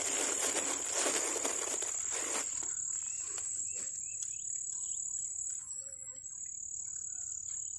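Steady high-pitched insect trill running on, with a noisy hiss over the first two and a half seconds and scattered small clicks and short chirps after it.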